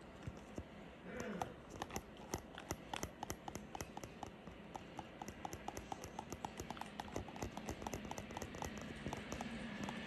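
Rapid rhythmic clicking, about three clicks a second, with a train's rumble growing louder near the end as it approaches.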